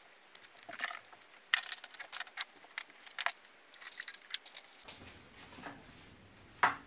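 Rummaging and handling noises: a patter of light clicks, knocks and rustles as things are moved about low down by a shelf and a covered sewing machine with its foot pedal is lifted out. A single sharp knock comes near the end.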